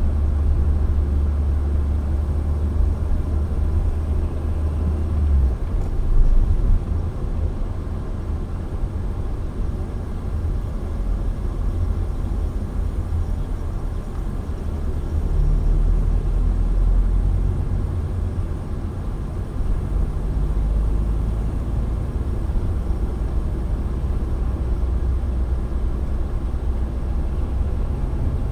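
Steady low rumble of a moving car, engine and road noise heard from inside the cabin, swelling briefly about six seconds in.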